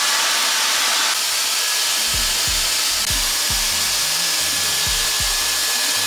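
TYMO Airhype hair dryer running: a steady rush of air with a thin high motor whine that joins about a second in. Background music with a steady beat comes in about two seconds in.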